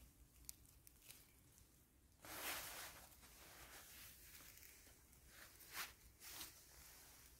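Faint rustling of dry leaves and forest litter as a mushroom is picked by hand and handled, with a louder rustle about two seconds in and a few short rustles near the end.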